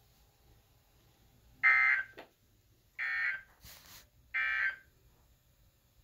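Weather radio sending three short bursts of Emergency Alert System SAME data tones, each a fraction of a second of harsh warbling near 2 kHz, about a second apart. This is the end-of-message code closing a Required Weekly Test. A brief soft rushing noise comes between the second and third bursts.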